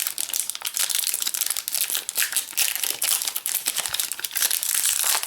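Foil wrapper of a Magic: The Gathering booster pack crinkling steadily as it is handled and worked open by hand.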